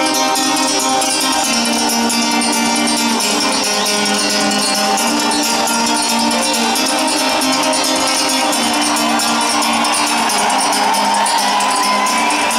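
Solo acoustic guitar played live, a fast, busy picked passage with many rapid notes ringing over one another.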